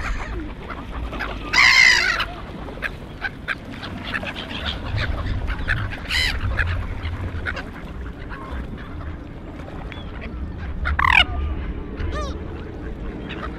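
Loud bird calls, about four in all: one about two seconds in, one about six seconds in, and a call falling in pitch near eleven seconds with a shorter one after it, over a steady low rumble.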